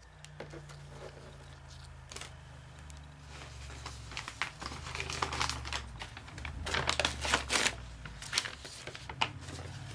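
Handling noise: irregular rustling and crinkling with sharp clicks, busiest in the second half, as a plastic acrylic paint bottle is handled and clothing moves close to the microphone. A low steady hum sits underneath.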